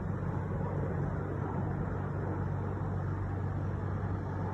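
Airplane on landing approach: steady engine noise, a low hum under an even rush that holds level.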